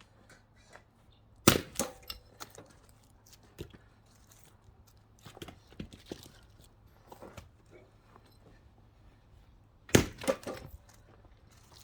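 Axe splitting pine firewood rounds: two sharp cracking blows, one about a second and a half in and one near the end, each followed by a short clatter of split pieces. Lighter wooden knocks come in between as logs are handled.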